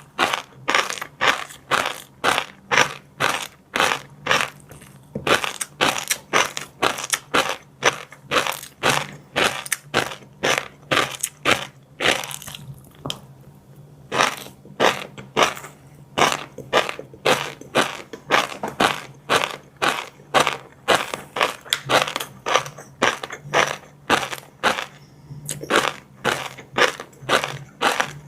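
Close-miked chewing of crunchy food, a steady run of sharp crunches about two a second with a brief pause about twelve seconds in.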